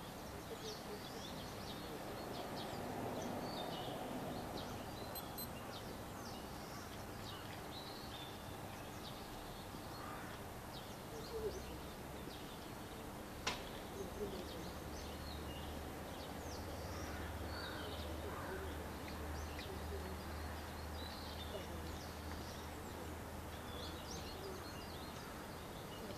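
Small birds chirping over a quiet outdoor background, with a low steady hum that grows stronger in the second half and one sharp click about halfway through.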